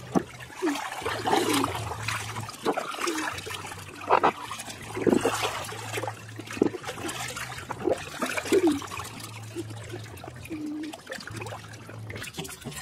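Water splashing and sloshing in a small inflatable paddling pool as a child swims and kicks in it: irregular splashes with short gurgles between them, over a low steady hum.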